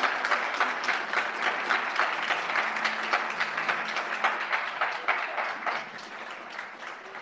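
Audience applauding, a dense patter of many hands clapping that tapers off and quietens in the last couple of seconds.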